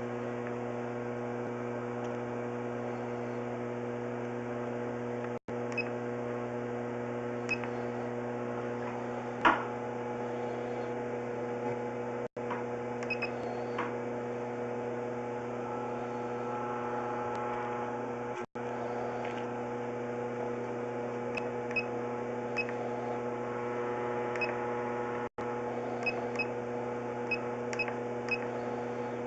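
Steady electrical hum with several pitched overtones, with faint ticks and short beeps scattered through it and one louder click about nine seconds in. The sound cuts out completely for an instant four times.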